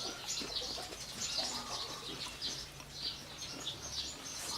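Small birds chirping over and over in the background, with a faint low hum that stops about four seconds in.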